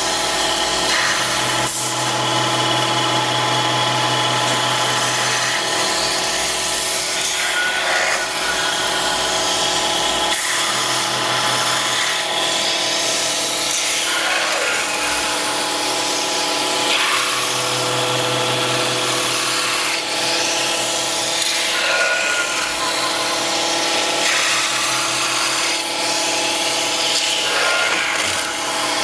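CNC metal spinning lathe running while its forming roller presses and rubs against the spinning sheet metal. A steady whine and a hiss of metal rubbing on metal, with the noise swelling every few seconds as the roller makes its passes.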